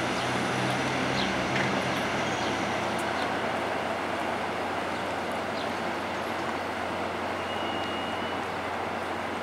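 Three-car Union Pearson Express diesel multiple unit rolling slowly through the station tracks: a steady low engine drone over a wash of city noise, its humming strongest in the first couple of seconds. A brief faint high tone comes near the end.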